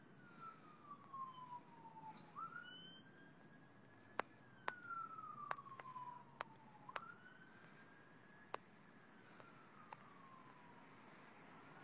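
Faint emergency-vehicle siren wailing, its pitch sliding slowly down and sweeping quickly back up in cycles of a few seconds. Several sharp clicks sound through the middle of it.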